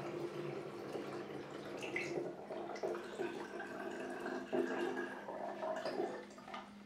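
Fruit kefir poured from a glass jar through a plastic funnel into a swing-top glass bottle, the liquid running steadily into the filling bottle and dying away near the end as the jar empties.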